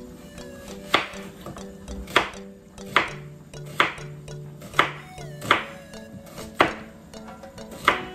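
Kitchen knife slicing through an onion and striking a wooden cutting board, about one sharp cut a second at a slightly uneven pace, over background music.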